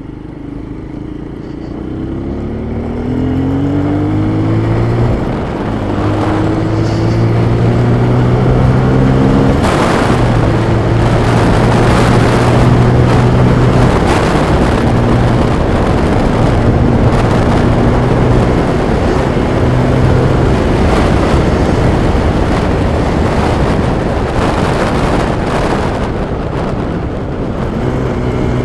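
Motorcycle engine accelerating, its pitch climbing over the first few seconds with a drop at a gear change, then holding steady at cruising speed. Heavy wind rushing over a helmet-mounted microphone.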